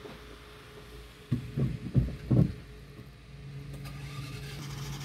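A car engine being started: a few low thumps, then the engine catches about three seconds in and settles into a steady idle hum.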